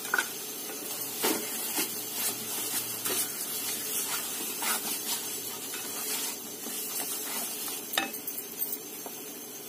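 Guava halwa sizzling in ghee in a kadhai while it is stirred, the spoon scraping and knocking against the pan in short sharp clicks every second or so.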